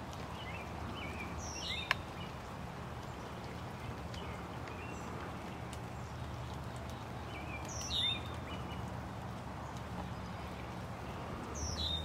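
Small birds chirping, with a short high call that falls in pitch heard three times, over a steady low rumble of outdoor background noise.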